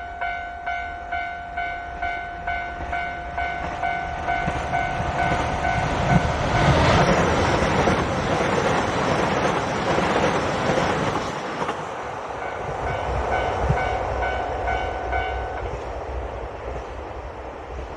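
A Japanese level-crossing alarm bell rings steadily at about two and a half strikes a second while a KiHa 261 series diesel express train runs through the crossing. The train is loudest in the middle and nearly drowns the bell. The bell stops a couple of seconds before the end, leaving the train's fading running noise.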